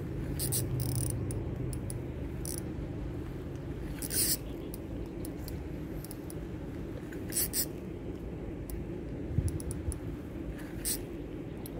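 Fishing reel giving short scratchy bursts of line, a few seconds apart, as a strong hooked carp pulls against the drag, over a steady low background rumble.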